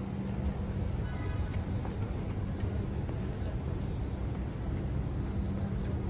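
Steady low engine hum and rumble, with birds chirping in short high calls above it, one louder call about a second in.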